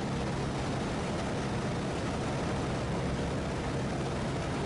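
Light aircraft's engine and propeller running steadily in level flight, heard from inside the cockpit as an even low hum with airflow noise.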